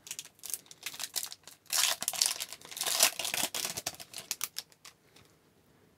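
A foil card-pack wrapper being torn open and crinkled by hand: a run of irregular rustles and crackles that stops about five seconds in.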